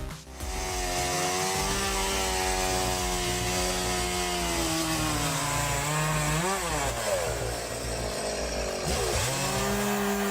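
Two-stroke chainsaw engine running steadily, its pitch sagging slowly, then swooping up and down about two-thirds of the way through and dipping sharply near the end before holding steady.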